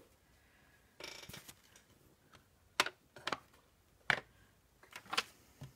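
Paper and craft pieces being handled on a table: a short rustle about a second in, then several sharp clicks and taps.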